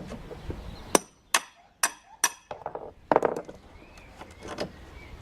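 Hammer knocking on a pine pallet board to work it loose from its nails: four sharp blows about half a second apart, then a quick cluster of knocks and a lighter one.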